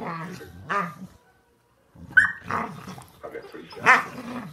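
Two dogs play-fighting: low growling with a few short, sharp barks, one about a second in, one after a brief silent pause, and one near the end.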